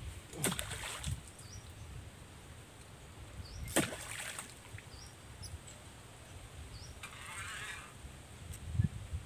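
Water splashing and sloshing at the river's edge in a few sharp splashes, with a longer splashing stretch near the end. Under it, a faint short chirp repeats about once a second.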